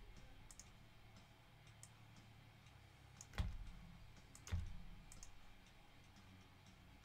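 Computer mouse and keyboard clicks: a few faint scattered clicks, with two louder clicks about three and a half and four and a half seconds in.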